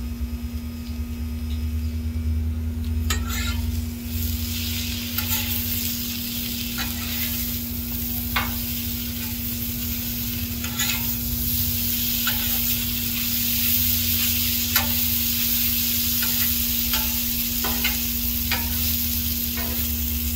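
Shredded hash browns sizzling in butter on a Blackstone steel griddle, with a metal spatula scraping and tapping on the flat-top as they are pushed into a pile. The sizzle gets louder about three seconds in, and the scrapes come every second or so.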